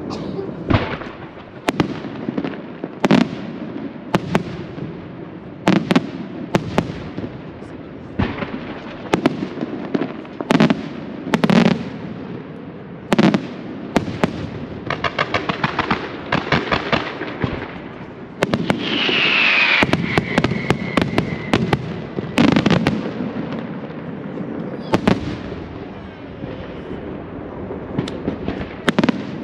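Aerial firework shells bursting in a steady string of sharp bangs. A run of rapid crackling comes around the middle, and a whistle falls in pitch about two-thirds of the way through.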